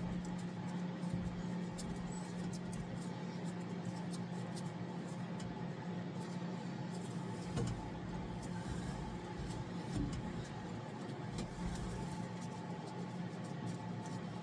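Small scattered clicks and taps of hand work on the truck's fuel pump and its mounting, over a steady low hum.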